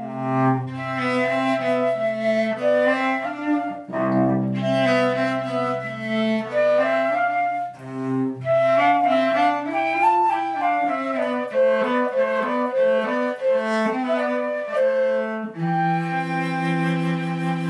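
Flute and cello playing a classical duet: the cello holds low bowed notes beneath running flute melody lines, and both settle into a long held chord near the end.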